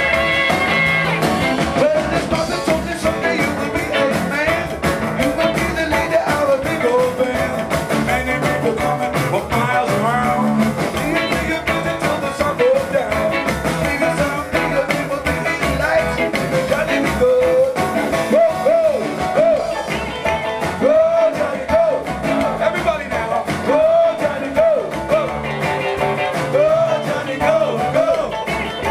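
Live rock and roll band playing: electric guitars, a drum kit and an upright double bass, with a man singing lead.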